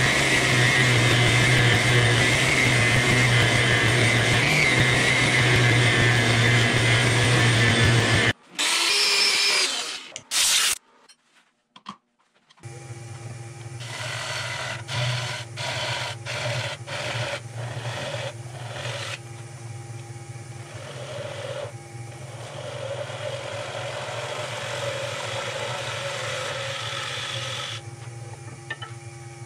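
A steady machine hum with hiss for the first eight seconds, which cuts off. About twelve seconds in, a wood lathe starts, and a gouge cuts the base of a spinning green butternut bowl held on a vacuum chuck: several short cuts, then a longer steady cut.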